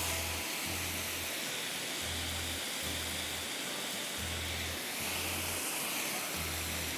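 Background music with a pulsing bass line, over a steady hiss.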